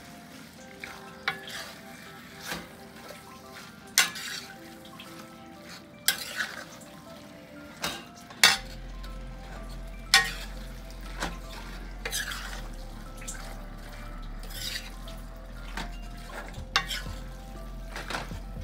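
Beef chunks frying with spices in a stainless steel sauté pan, sizzling while a metal spoon stirs them, with sharp clanks of the spoon against the pan every second or two.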